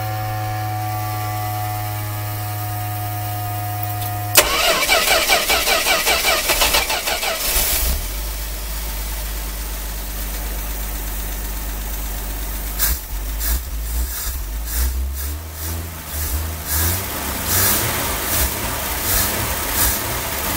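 A steady hum for about four seconds and a sharp click, then the Dodge A100's slant-six engine cranks with fast uneven pulses and catches about eight seconds in. It settles into a steady idle, and near the end its revs rise and fall as the throttle on the freshly rebuilt Carter BBS carburetor is worked.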